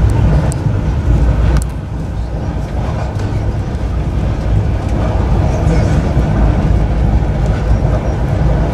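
Steady low rumble of a passenger train running at speed, heard from inside the carriage. A couple of short clicks come within the first two seconds.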